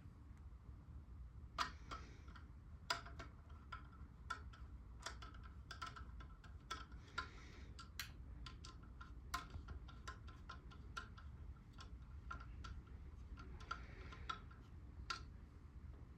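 Irregular small metallic clicks and clinks, some with a brief ring: ceiling fan parts and hardware being handled and fitted by hand.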